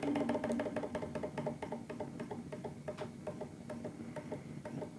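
Small gas-fired Stirling engine running with a rhythmic mechanical ticking that slows and fades over the few seconds. Its flywheel generator's output is shorted, and the dead-short load drags the engine down almost to a stall.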